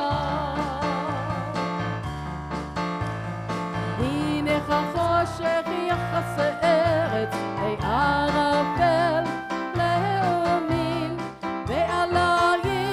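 Worship song played by a band, with a sung melody over a steady bass line.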